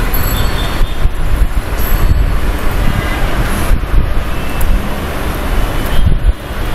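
Loud, steady rumbling background noise, heaviest in the low end.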